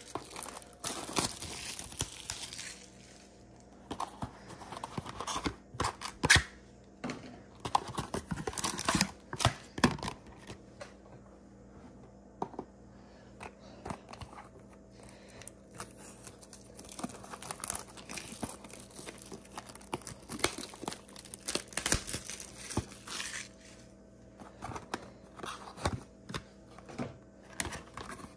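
Plastic shrink wrap being torn and crinkled off a small cardboard booster box, then the box handled and its cardboard flaps pulled open. The sound is irregular crackling and sharp little tears, with quieter pauses between bursts.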